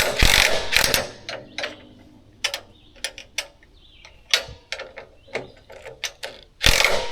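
Socket ratchet wrench clicking in quick runs as bolts on a bandsaw sawmill's frame are loosened: one run at the start and another near the end, with scattered metal clinks in between.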